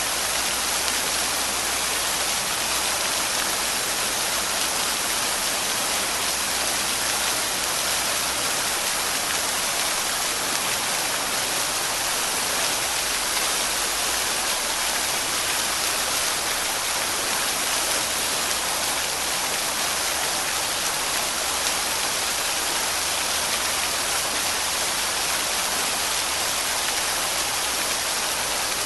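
Waterfall: a steady, unbroken rush of falling water with a bright hiss, even in level throughout.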